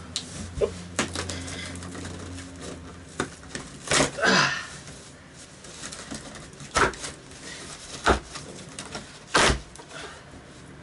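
Large cardboard shipping box being opened by hand: flaps pulled apart and tearing, with scrapes and sharp knocks of cardboard, the loudest about four seconds in and again near the end.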